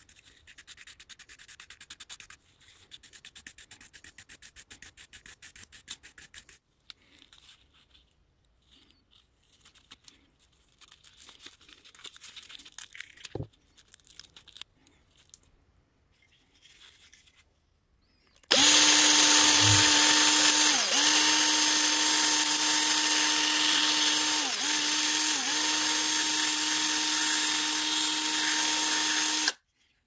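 A Zippo lighter insert scrubbed with a stiff brush in quick, rhythmic strokes, followed by scattered small scrapes and clicks. About eighteen seconds in, a small electric power tool starts and runs steadily and loudly for about eleven seconds. Its pitch dips briefly a few times before it stops abruptly.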